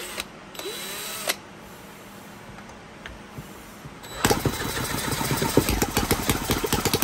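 A cordless drill spins the crankshaft of a green CNC-machined 10cc Whippet model engine to start it. There is a brief whirr about a second in. From about four seconds in there is a loud, fast, even train of pops as the engine is cranked and fires.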